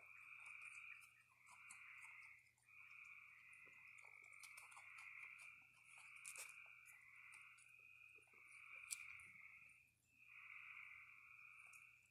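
A chorus of frogs trilling, each call about a second long and following one after another without a break. Faint crunches and clicks of raccoons chewing snack food come through underneath.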